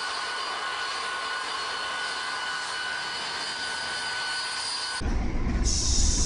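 Rail-mounted rotary snow blower running with a steady whine of several held tones. About five seconds in, it cuts sharply to the louder low rumble and hiss of a snow plow train passing close by, pushing through snow.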